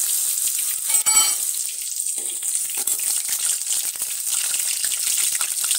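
Chopped garlic with cumin and mustard seeds sizzling and crackling in hot oil in an aluminium pot, a tadka (tempering) on the stove, while a metal spoon stirs. A short ringing metal clink comes about a second in.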